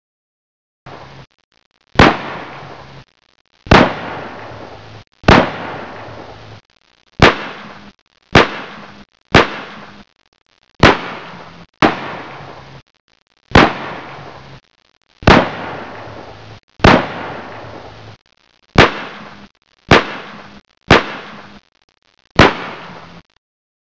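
A series of about fifteen sharp gunshots at uneven intervals, one to two seconds apart, each followed by a short echoing tail that cuts off abruptly.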